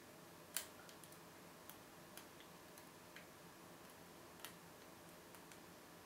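Faint, irregular metallic clicks of a hook pick and tension wrench working the pin tumblers of a brass Vachette série 7000 half-cylinder, with the sharpest click about half a second in and another clear one near the end.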